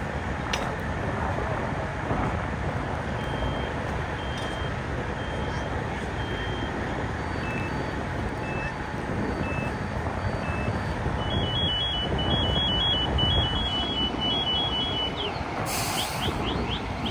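Steady noise of a semi-truck driving. From about three seconds in, a series of short high electronic beeps sounds over it: single beeps at first, then alternating between two pitches, then a rapid alternating beeping for a few seconds that stops near the end.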